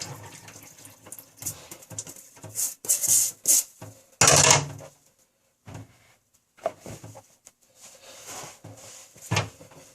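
Irregular rubbing and scraping noises from a sneaker being handled and wiped down, with one louder rustle about four seconds in.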